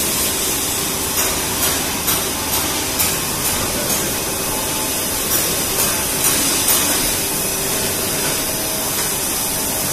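Blown-film extrusion machine running: a steady loud air hiss with a machine hum underneath, and a scattering of light knocks.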